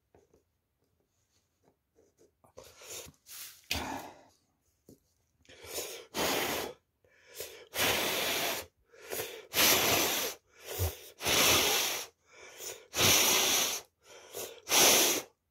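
Repeated short bursts of hissing, about a dozen of them, each up to about a second long with brief gaps between, starting faint and growing louder.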